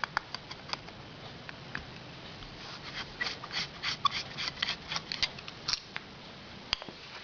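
Small metal carburetor parts and jets being handled on the bench, with light clicks and taps that come thick and fast from about two and a half seconds in.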